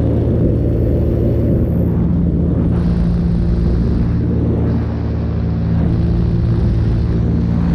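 Paramotor engine and propeller running steadily in flight, a constant low drone that dips slightly in level about five seconds in.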